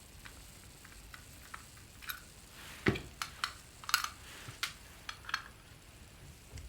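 Scattered light clicks and metallic clinks of a small metal guitar-pedal enclosure and its parts being handled as it is opened, with one duller knock about three seconds in.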